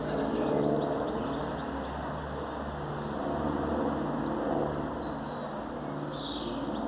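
A steady low engine drone with a slow pulsing beat, with a few bird chirps about five seconds in.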